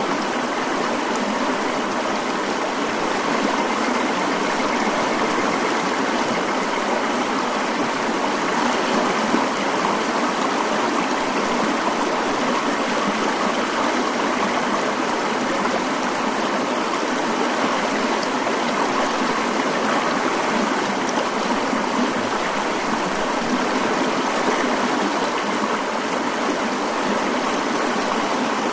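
Mountain stream flowing, a steady unbroken rush of water with hardly any low rumble.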